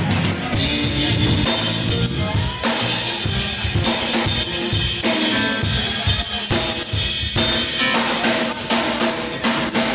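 Live band playing, with the drum kit's bass drum and snare hits to the fore.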